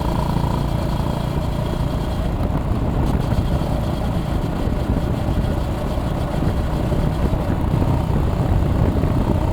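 Honda GB350S's air-cooled single-cylinder engine running steadily as the motorcycle cruises along at an easy pace.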